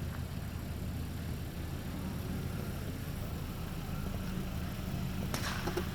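A steady low rumble with a single sharp firework crack about five seconds in, followed by a brief crackle.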